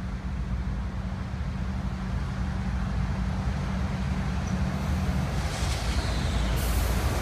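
GE ES40DC diesel-electric locomotive leading two more diesel units, running light with their engines rumbling steadily and growing louder as they approach. A brief hiss comes in about five and a half seconds in.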